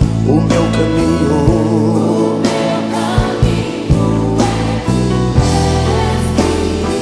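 Portuguese-language gospel worship song: sung vocals over a band, with drums keeping a steady beat.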